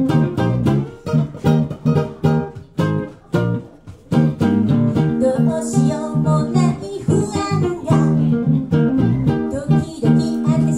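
Live band: acoustic guitar and a second plucked string instrument playing a steady picked accompaniment, with a woman starting to sing into a microphone about five seconds in.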